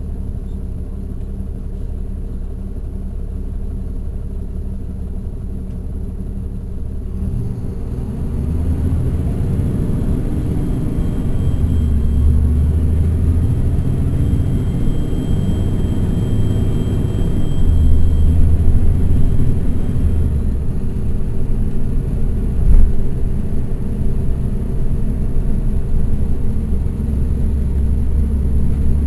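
Caterpillar C13 diesel engine of a NABI 416.15 transit bus, heard from the rear of the cabin: running steadily and low for about seven seconds, then getting louder as the bus accelerates, its note rising and falling as the ZF Ecomat automatic transmission works through the gears. A single sharp thump about 23 seconds in.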